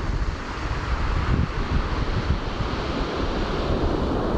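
Surf washing onto a beach, a steady wash of noise, with wind rumbling on the microphone.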